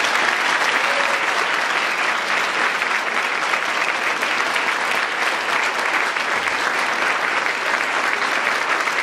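Audience applauding steadily: many people clapping at once in a room.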